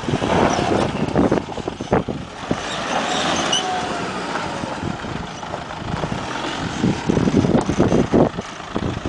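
Toyota Hilux D-4D turbo-diesel pickup crawling slowly over rocky ground: the engine runs at low revs while the tyres crunch and knock irregularly over stones and gravel.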